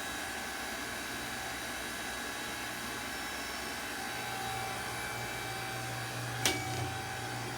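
Hydraulic seat belt tester running steadily through its load cycle, its pump and motor humming; the low hum grows stronger about halfway through. A single sharp click sounds near the end.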